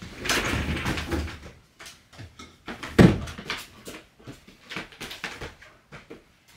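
A sliding fusuma door being slid shut in the first second or so, then a single loud thump about three seconds in, followed by scattered light taps and clicks as a large puppy moves about on the floor.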